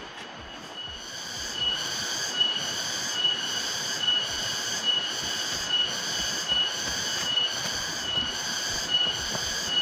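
Cicadas in a shrill chorus, swelling and fading in a regular pulse about every 0.8 s, setting in about a second in.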